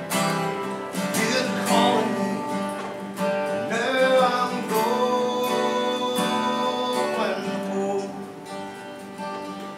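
Solo acoustic guitar strummed live, with a voice holding long sung notes over it through the middle; the playing grows softer near the end.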